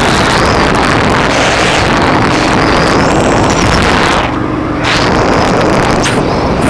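KTM LC8 V-twin adventure motorcycle riding off-road, its engine running under heavy wind buffeting on the microphone. The sound drops briefly a little past the middle.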